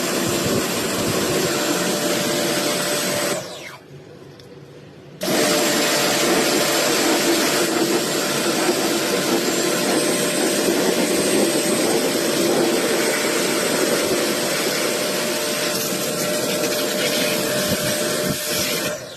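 A machine with a small motor running steadily with a loud hiss. It cuts out a few seconds in, starts again about two seconds later, and stops near the end.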